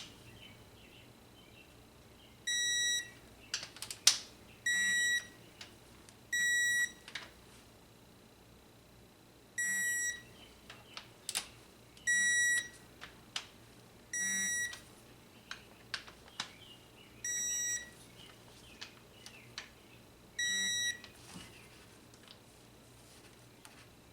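Digital torque wrench beeping as each bolt reaches its set torque of 18 ft-lb: eight steady high beeps of under a second, spaced two to three seconds apart, with short clicks from the wrench between them.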